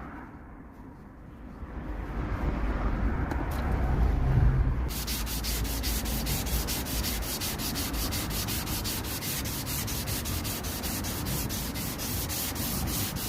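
Sanding on the stapled crack repair of a plastic car bumper. A low rubbing rumble builds at first, and from about five seconds in it becomes a hissing scrape that pulses quickly and evenly.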